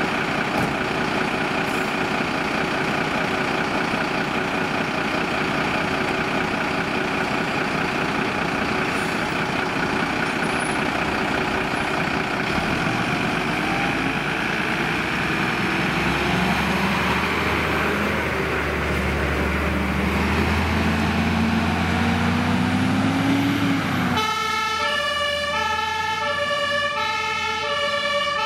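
Mercedes-Benz fire engine's diesel engine running as it pulls away, revving higher and higher before dropping back as it shifts. About 24 seconds in, its two-tone German emergency siren starts, switching back and forth between two pitches.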